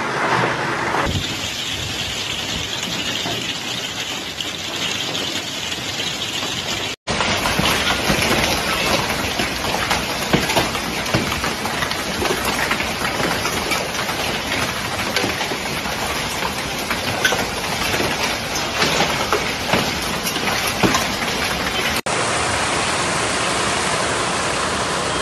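A hailstorm: dense hiss of hail and rain falling, with many sharp ticks and knocks of hailstones striking the ground and other hard surfaces. The sound changes abruptly a few times, with a brief dropout about seven seconds in.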